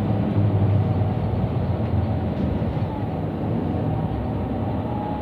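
Mercedes-Benz Citaro C2 Euro 6 city bus driving between stops, heard from inside the bus: a steady low engine drone with road noise.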